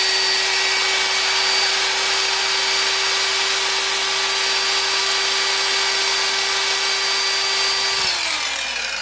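Evolution EVOSAW180HD steel-cutting circular saw running free at full speed with no load, a steady high whine with a whirring hiss, on a test run of its motor. About eight seconds in the trigger is released and the motor and blade spin down, the pitch falling away.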